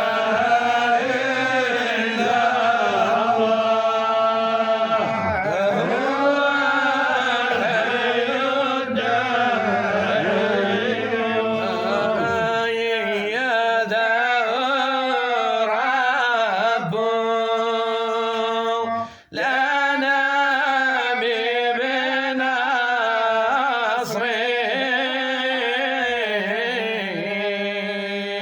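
Male voice chanting a Sufi devotional poem in long, drawn-out melismatic lines over a steady low drone, with a brief pause about two-thirds of the way through.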